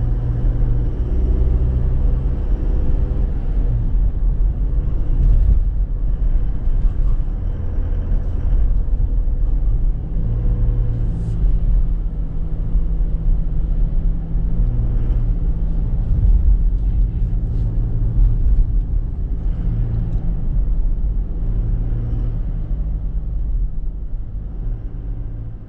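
Chevrolet Trailblazer 2.8 four-cylinder turbo diesel running while the SUV is driven, a steady low rumble of engine and road noise. The engine note shifts up and down every few seconds, with a few light clicks over it.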